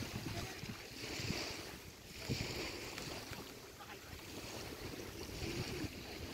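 Small waves washing onto a sandy shore, rising and falling a few times, with wind rumbling on the microphone.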